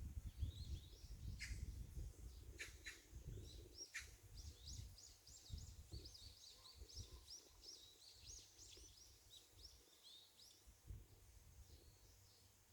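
Small birds twittering in quick high chirps, with a few short sharp calls in the first four seconds. A faint low rumble fades away over the first half.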